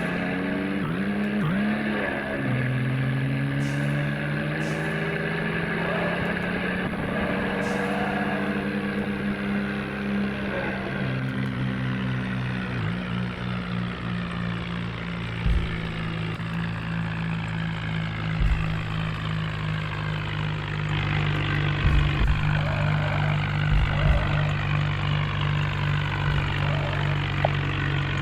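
Bulldozer's diesel engine running steadily, its pitch shifting a few times, with several short low thumps in the second half.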